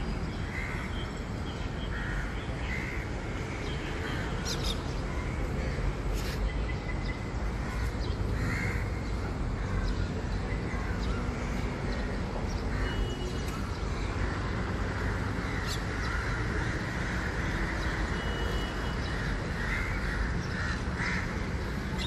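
Crows cawing now and then, in short calls clustered near the start and near the end, over a steady low rumble of city street noise.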